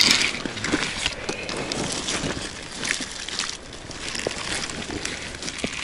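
Handling noise as hands work a freshly caught pink salmon on a pebble bank: rustling and scraping with many small irregular knocks and clicks.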